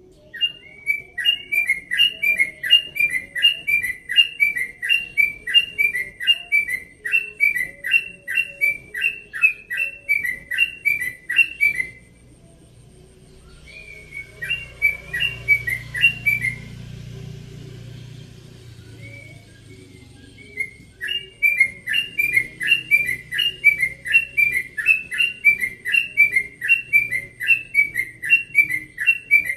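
Caged yellow-vented bulbul singing its rolling song: a fast run of the same short whistled phrase, about two a second, breaking off about twelve seconds in. After a brief burst and a pause it starts up again for a second long run.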